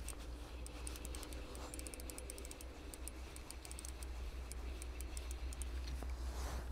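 Shimano Ultegra 2500 spinning reel being cranked to retrieve line: a soft mechanical whirr with a rapid run of light ticks, which stop about six seconds in. A steady low rumble lies underneath.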